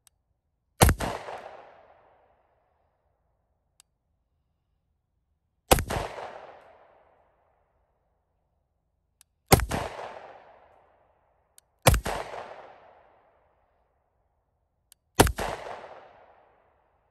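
Springfield Armory XD pistol firing five single shots a few seconds apart, each followed by an echo that dies away over about a second.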